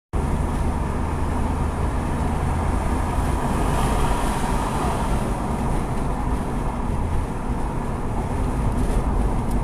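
Steady road and engine noise inside a moving car's cabin: a low rumble under an even hiss.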